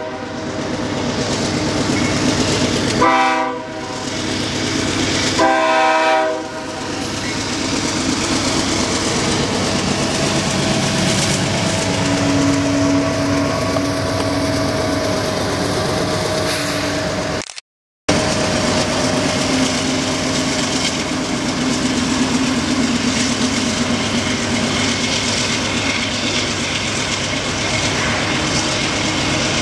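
Canadian Pacific freight train passing close by: the lead diesel locomotive's air horn sounds two blasts of about a second each in the first few seconds, a crossing warning. Then the locomotives run past with a steady engine drone and hum, along with the rumble and clack of the train on the rails. The sound cuts out for a moment about two-thirds of the way through.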